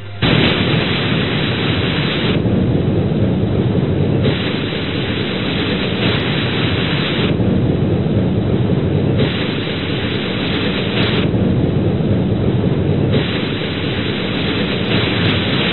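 A loud, dense rumbling and rushing roar, like heavy water or a storm, that starts abruptly. Its hissing upper part grows louder and quieter every two seconds or so.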